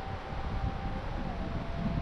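Blizzard wind buffeting the microphone over a steady rushing hiss, with a faint thin whistling tone that drops slightly in pitch partway through.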